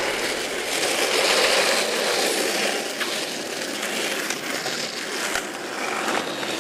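Skateboard wheels rolling over rough asphalt, a steady gritty rumble with a light click about five seconds in.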